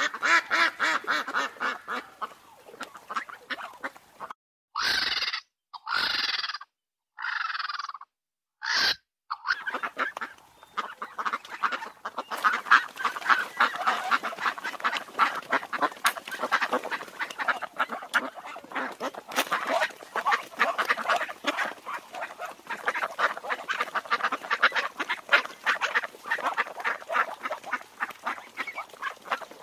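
Ducks calling: a quick run of calls, then four separate calls with silence between them. From about ten seconds in, a flock of mallards quacks in a dense, rapid chatter.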